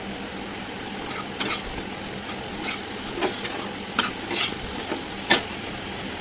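A steel spatula scrapes and knocks against a non-stick kadai as a thick mashed fish mixture is stirred. There are soft scrapes and about half a dozen sharp clacks, the loudest near the end.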